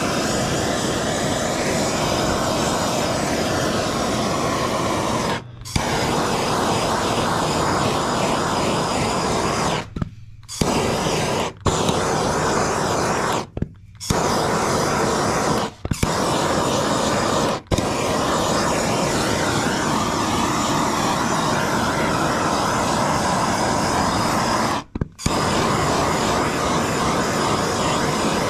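Bernzomatic handheld gas torch burning with a steady hiss as its flame is played over plastic. The sound cuts out abruptly for a split second several times.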